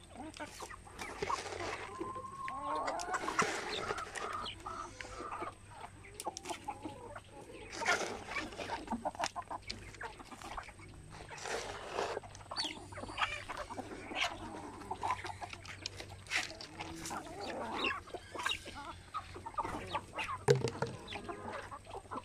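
A mixed flock of free-range heritage chickens clucking and calling as they feed, with many short sharp clicks among the calls.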